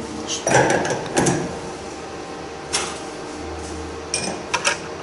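Small metal parts of a Bosch diesel injector being handled and fitted by hand in a bench holder: a brief rattling rub about half a second in, a single click near the middle, and a few quick sharp clicks near the end.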